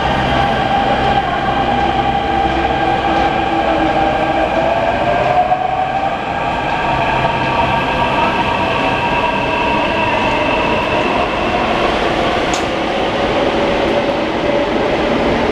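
Delhi Metro Blue Line Hyundai-Rotem electric train running, heard from inside the coach: a steady rumble under a whine of several held tones, one of which rises about six seconds in.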